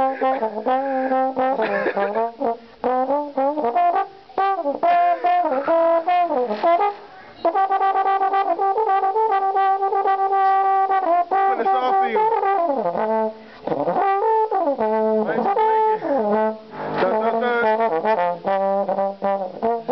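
Brass horn music: a horn plays held notes and sliding, bending phrases with short breaks, and holds one long steady note about eight seconds in.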